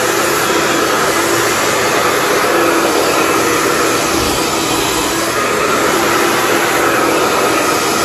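Handheld hair dryer blowing steadily, a continuous even rush of air with a faint steady hum under it.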